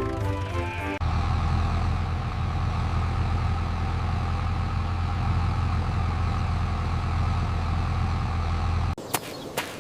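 A tractor engine running steadily with a low, even hum. It starts abruptly about a second in and cuts off suddenly near the end.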